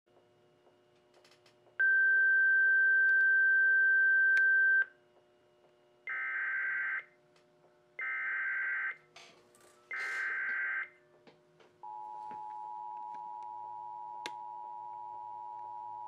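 An Emergency Alert System alert coming in. First a steady high beep for about three seconds, then three one-second bursts of the warbling digital SAME header tones. From about twelve seconds in comes the steady two-tone EAS attention signal.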